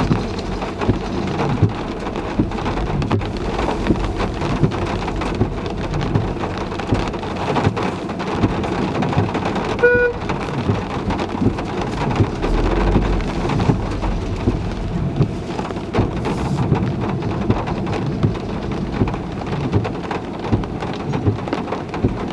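Heavy rain hitting a car: a steady hiss full of dense drop ticks, with a short car horn toot about ten seconds in.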